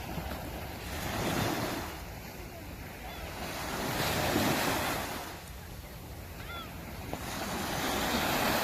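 Waves breaking on the beach, the surf swelling and falling back in three surges a few seconds apart, with some wind on the microphone.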